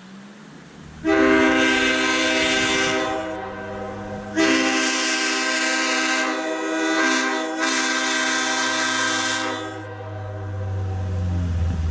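Multi-chime air horn with a train-horn chord, blowing two long blasts: one of about two seconds, then one of about five seconds that wavers briefly in the middle. A low engine rumble underneath grows louder near the end.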